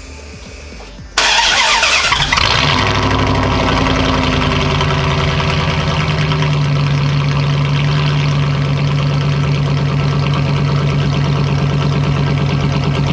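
Second-gen Dodge Ram V8 with its muffler removed, starting up on an open exhaust: it catches suddenly about a second in with a brief flare, then settles into a loud, steady idle.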